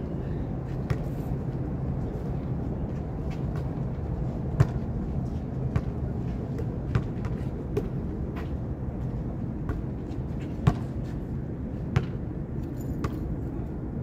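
A basketball thudding now and then on an outdoor concrete court: about a dozen separate sharp knocks at uneven intervals, over a steady low rumble.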